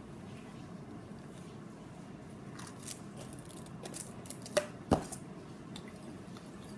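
A handful of light clicks and taps from handling slime-making utensils and containers, with two sharp clicks close together a little past the middle; one of them has a brief ring, like a utensil striking a bowl.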